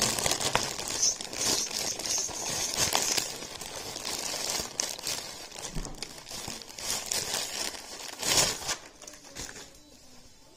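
Blue plastic mailer bag being opened by hand, crinkling and rustling with sharp crackles, dying down near the end.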